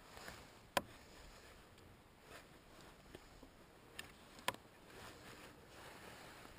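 Quiet handling of fishing tackle on a kayak while bringing in a hooked fish: three sharp clicks, about a second in and twice close together around four seconds in, with a few softer taps between them.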